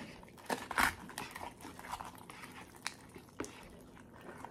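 A metal spoon stirring and scooping in a cup of instant ramen. It makes a few sharp clicks and scrapes, with one louder short noise about a second in.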